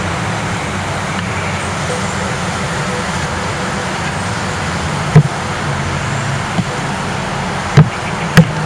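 Steady hum of honey bees buzzing around a freshly smoked, opened hive, with three sharp knocks of the wooden hive cover, one about five seconds in and two near the end, as it is knocked to shake off the bees.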